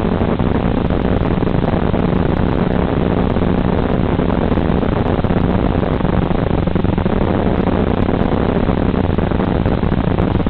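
FPV drone's electric motors and propellers in steady cruising flight, heard from on board: a constant low hum under a rushing noise of wind and props.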